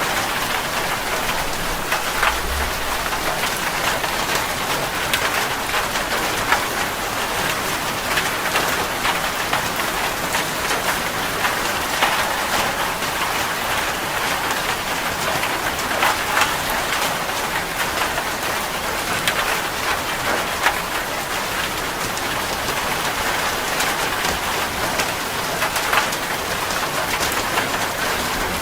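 Steady rain falling on a surface, a constant hiss with many individual drops ticking and pattering through it.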